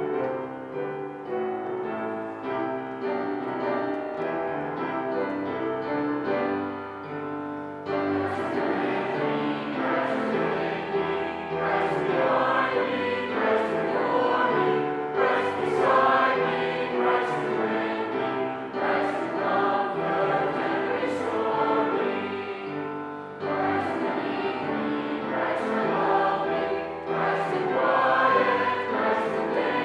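Congregation singing with grand piano accompaniment; the piano plays alone for about the first eight seconds before the voices come in.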